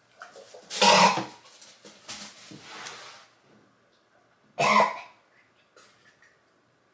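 A man coughing hard, one loud cough about a second in and another near five seconds, with rougher hacking between: a reaction to swallowing a thick, foul drink.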